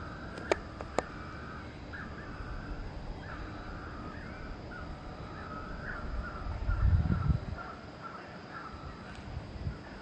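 Birds calling outdoors: a short call repeated about twice a second, with two sharp clicks near the start and a brief low rumble around seven seconds in.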